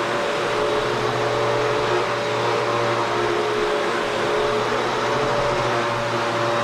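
Vacuum cleaner running steadily: an even rush of air with a constant motor hum.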